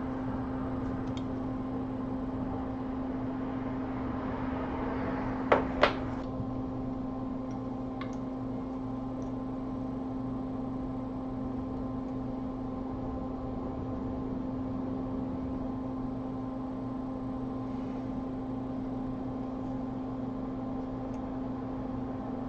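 Steady machine hum of bench equipment, with an airy hiss that drops away about six seconds in, right after two sharp clicks.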